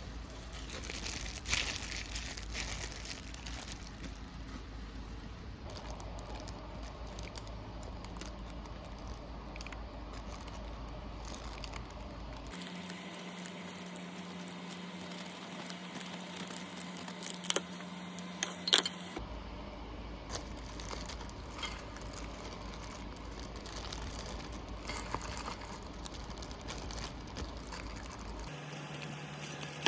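Quiet handling sounds: soft crinkling and rustling with scattered light taps, and a few sharper clicks a little past the middle, over room tone that changes abruptly several times.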